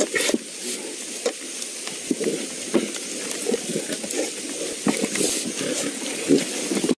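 Irregular crackling and rustling of dry leaf litter and twigs as a jaguar steps and noses through the forest floor, over the steady hiss of a camera-trap recording.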